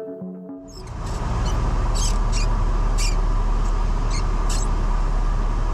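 Background music cuts out within the first second, giving way to the steady cabin drone of a Cessna 172's Continental O-300 six-cylinder engine and rushing air. Several short, high-pitched squeaks sound over the drone in the middle seconds.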